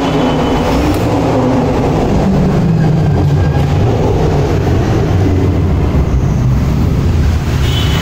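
Several car engines and exhausts rumbling at low speed as a line of cars crawls past inside a covered concrete underpass; the low engine notes waver up and down slightly.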